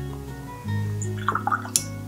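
Background music of gently plucked acoustic guitar, with a few short sharp clicks about three-quarters of the way through.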